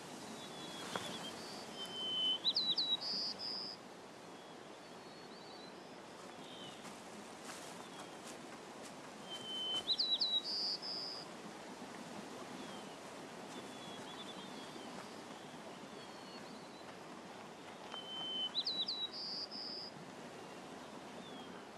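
A songbird sings the same short phrase three times, about eight seconds apart. Each phrase is a held whistle, then a quick run of rising and falling notes, then a higher buzzy note. Fainter chirps from other birds and a steady outdoor background hiss fill the gaps.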